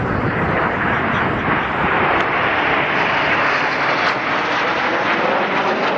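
A formation of Canadair CT-114 Tutor jet trainers flying over, the steady rushing noise of their single turbojet engines.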